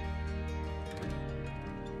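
Instrumental background music: held notes and chords that change about once a second.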